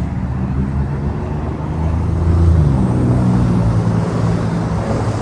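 Road traffic: vehicle engines running with a heavy low rumble that swells about two seconds in.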